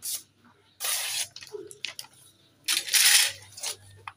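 A hand-forged steel sickle blade slicing through a hand-held sheet of printed paper: three short papery swishes, near the start, about a second in and about three seconds in, the last the loudest. It is a sharpness test of the blade.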